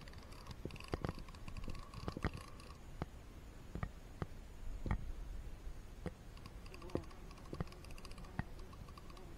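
Faint, irregular clicks and small taps while a just-caught piranha is unhooked by hand, the hook tearing out of its mouth.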